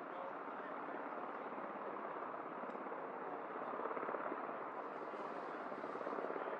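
MH-60S Seahawk helicopter running, a steady, even rotor and engine noise.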